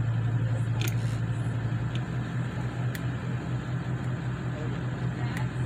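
Boat engine running steadily with a low drone, heard from on board as the boat cruises slowly.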